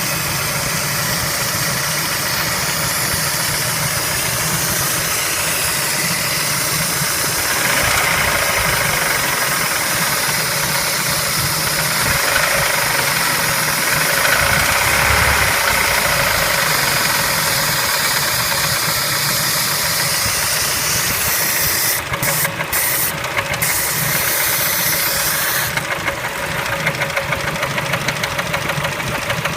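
Kia Spectra engine running with a knock. It grows louder for several seconds about a quarter of the way in, and a fast, even rhythmic beat comes through near the end.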